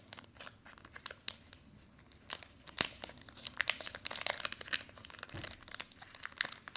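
Foil Pokémon booster pack wrapper crinkling as it is handled, a run of sharp crackles that grows busier about halfway through.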